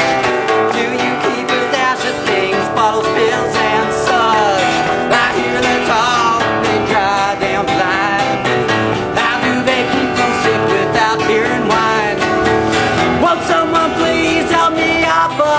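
Live acoustic guitar music, strummed, with a melody line over it that slides and bends in pitch.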